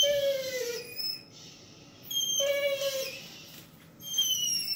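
Dog whining in high, dolphin-like squeals: three drawn-out whines, each about a second long and dipping in pitch at the end, a dog eager to play with another dog.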